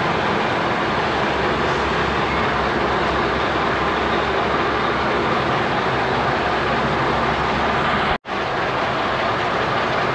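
Scania 144 530 truck's V8 diesel engine running steadily as the truck rolls slowly forward. The sound cuts out for an instant about eight seconds in.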